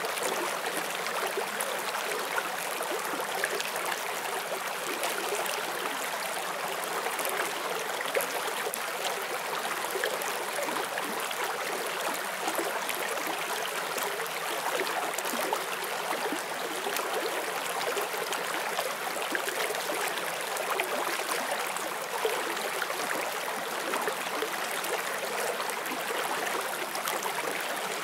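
Shallow forest stream flowing over stones: a steady splashing and gurgling rush of water with fine bright flickers, no pauses.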